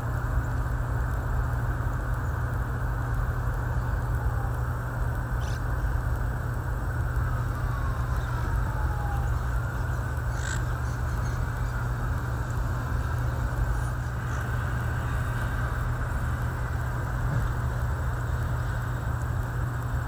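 Steady low rumble of city traffic, with a faint tone falling in pitch about eight seconds in and two brief high sounds at about five and ten seconds.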